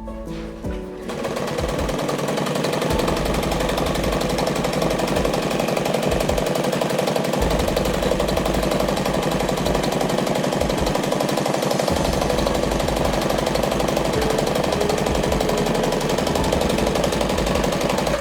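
Alfa Sheerline sewing machine starting about a second in and running fast and steadily, stitching, over background music.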